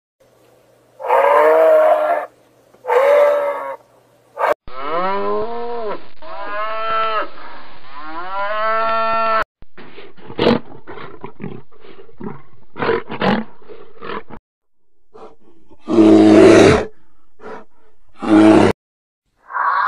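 A series of separate animal calls, one after another: two short calls, then a long run of drawn-out calls that rise and fall in pitch, a stretch of clicking, and two loud harsh calls near the end.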